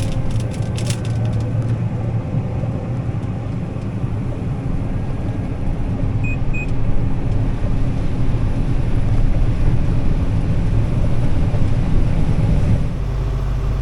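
Combine running steadily while shelling corn, a deep, continuous machinery rumble, with two short faint beeps about six seconds in. Near the end the sound cuts abruptly to a steadier, deeper engine hum.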